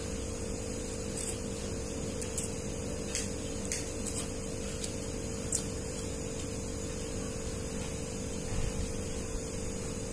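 Steady hum with a constant tone, under a scatter of small clicks and smacks from someone eating noodles with chopsticks.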